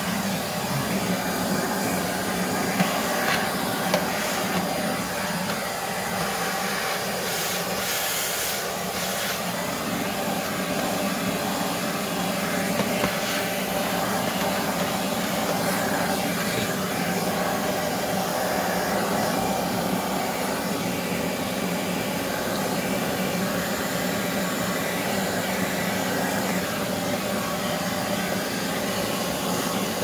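Bissell Pet Hair Eraser vacuum running steadily, its nozzle sucking dirt out of a plastic shop-vac canister. Two sharp knocks come a few seconds in, and there is a brief louder hiss about eight seconds in.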